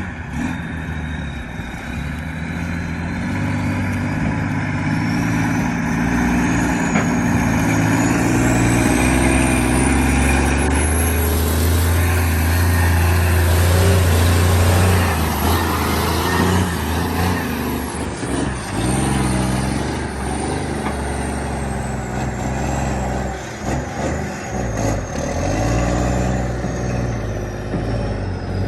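Loaded log truck's 500 hp Cummins diesel engine pulling hard under load. It grows louder to a peak about halfway through and then eases off, with a high whine that climbs slowly and falls away again.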